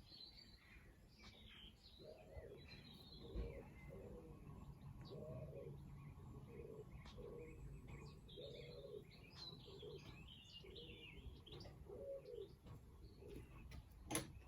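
Faint bird sounds: a soft low call repeated a little more than once a second for about ten seconds, with scattered high chirps over it.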